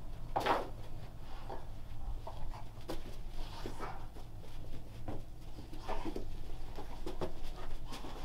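Dogs playing around a person: scattered light knocks and scuffles with short breathy snuffles, over a low steady hum.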